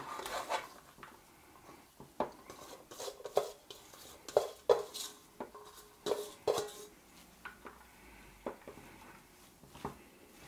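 Irregular clinks and knocks of a bowl and gloved hand against a stainless steel tray as spiced onion rings are tipped out over cubes of pork, a few of the knocks ringing briefly in the metal.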